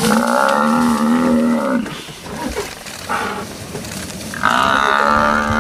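Cape buffalo bellowing in distress while lions pull at it: two long, drawn-out bellows, with a short cry between them about three seconds in.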